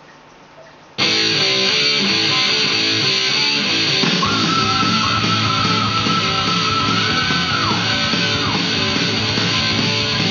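Rock music with electric guitar playing from a vinyl record on a Technics SL-20A turntable, starting abruptly about a second in after faint groove ticking. A long held lead-guitar note enters about four seconds in and drops away near the end of the phrase.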